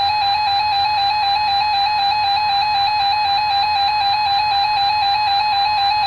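A weather alert radio's electronic alarm sounding: a loud, buzzy two-tone warble that flips rapidly back and forth between two close pitches, steady and unbroken, signalling that a weather alert has been received.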